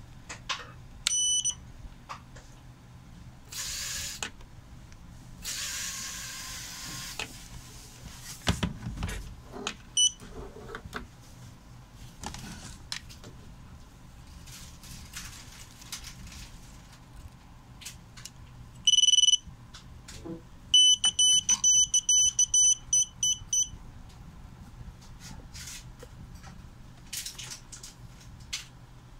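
High electronic beeps: a short one about a second in, a brief one later, a longer half-second beep, then a quick run of about ten beeps. Between them come rustling and handling clicks.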